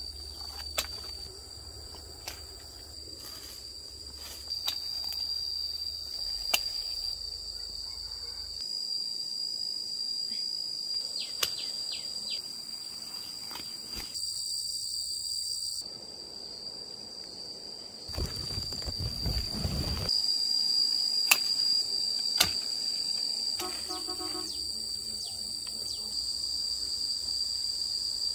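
Insects calling outdoors: a steady high-pitched drone, with scattered sharp clicks and knocks. A louder rush of noise lasts about two seconds, about two-thirds of the way in.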